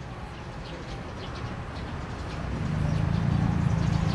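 A motor vehicle's engine running with a low, steady rumble, growing louder about halfway through and then holding.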